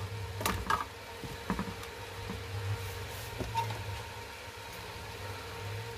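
A few light clicks and knocks, most in the first couple of seconds, as wires and parts are handled inside an opened voltage stabilizer's metal casing, over a steady low hum.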